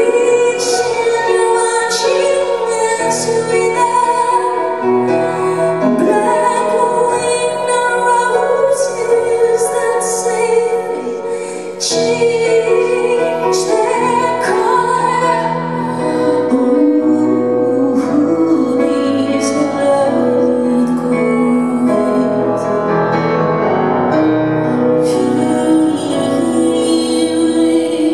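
Live music: piano and keyboards with a woman singing long held and gliding notes.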